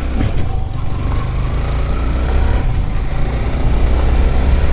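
Yamaha R15 motorcycle's single-cylinder four-stroke engine running under way, a steady low drone that grows slowly louder, with a faint rising whine partway through as it picks up revs.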